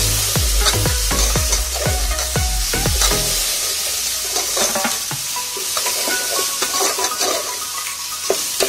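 Chopped tomatoes and spices frying in hot oil in a metal pot, sizzling while a steel spoon stirs and knocks against the pot. Over the first three seconds or so a run of falling tones with deep bass repeats about three times a second.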